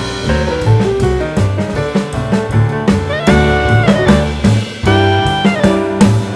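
Background instrumental music with a steady drum beat, bass line and a melody of held notes, jazzy in style.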